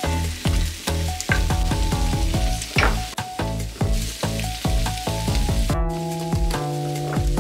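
Sausages sizzling in a frying pan, a steady hiss, under background music with a regular beat.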